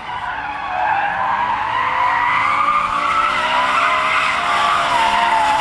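A BMW's tyres squealing as the car slides sideways around a wet skid pad, the pitch wavering, with its engine running hard underneath. The squeal builds in the first second and cuts off suddenly at the end.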